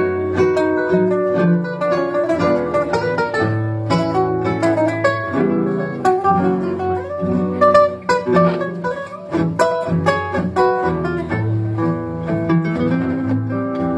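Tango guitar quartet of two Spanish guitars and two guitarrones playing live: a plucked melody and chords over a continuous bass line.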